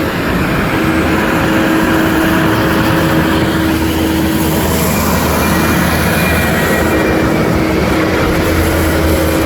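Heavy diesel construction machinery running steadily at close range, a loud continuous engine drone with a steady whine over it.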